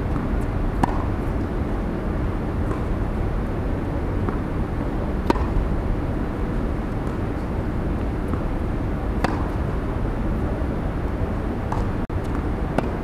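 Tennis ball struck by rackets during a rally: sharp pops a few seconds apart, the loudest about one, five and nine seconds in, with fainter knocks between. Under them a steady low rumble of outdoor background noise.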